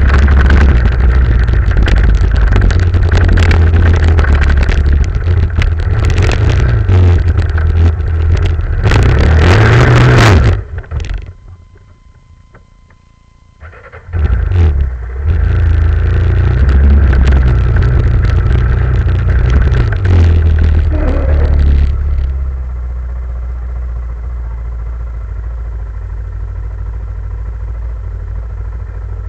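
Small off-road vehicle engine running and revving up and down as it drives. The sound drops away for a few seconds about eleven seconds in, comes back, and then settles into a steady, quieter idle for the last several seconds.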